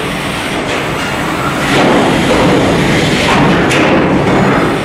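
Stamping press line with robotic transfer tooling running: a steady loud mechanical clatter and rumble, with a few sharper knocks as sheet-metal panels are moved.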